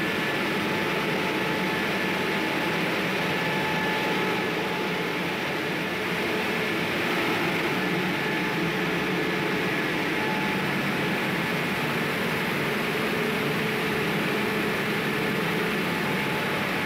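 A 1-ton-per-hour combined rice mill running: a steady mechanical hum and rush from its motors, blowers and milling machines, with two faint steady whining tones over it.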